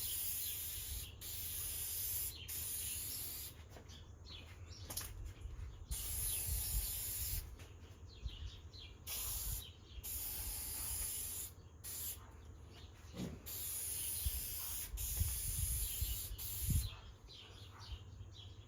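Aerosol can spraying clear shellac onto wooden fan blades in a series of hissing bursts, each about a second long, with short pauses between passes.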